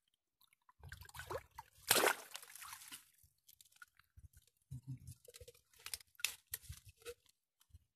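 Muddy river water sloshing and dripping as leafy mangrove branches are pulled and rustled through it, loudest about two seconds in, with scattered short crackles and drips in the second half.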